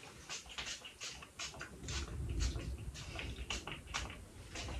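A perfume spray bottle sprayed again and again in short hisses, about two to three a second, with clothing rustle and low thuds of movement underneath.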